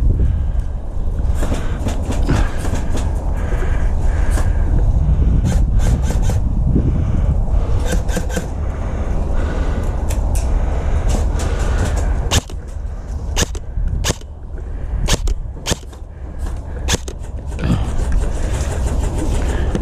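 Heavy wind rumble on the microphone. Many sharp clicks and knocks cut through it, thickest in the second half.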